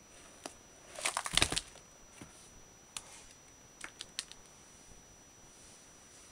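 Cardstock exploding box being opened by hand: the lid lifted off and the paper-covered side panels falling open, giving a quick cluster of papery rustles and light taps about a second in. A few scattered soft clicks follow.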